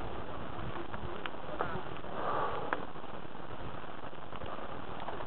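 Mountain bike rolling along a gravel track: a steady noise of tyres on loose stones, with a few sharp clicks and rattles from the bike.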